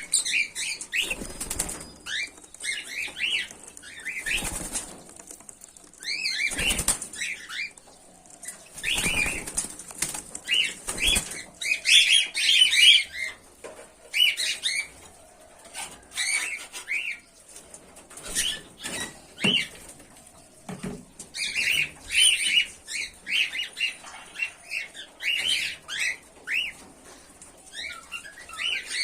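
Pearl cockatiels chirping in many short, repeated calls, with several brief bursts of wing flapping in the first half.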